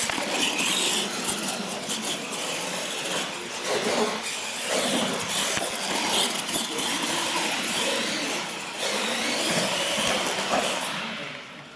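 Radio-controlled monster trucks racing flat out on a concrete floor: motors and big rubber tyres make a loud, rough rushing clatter that fades near the end.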